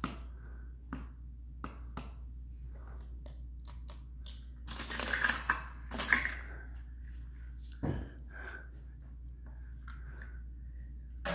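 An egg tapped several times against the rim of a small stainless-steel measuring cup, with light metallic clicks. Then the shell cracks and crunches as it is broken open, loudest about five to six seconds in, followed by a few more clicks and a soft knock.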